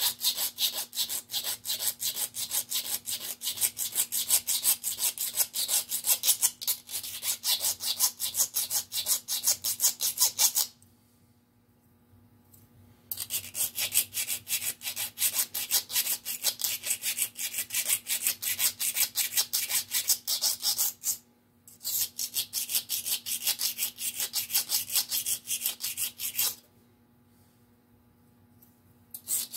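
Flat hand file worked rapidly back and forth over a small metal part held in a lathe chuck, a dry rasping at about four strokes a second. The filing stops for a couple of seconds about eleven seconds in, very briefly around twenty-one seconds, and again for the last few seconds.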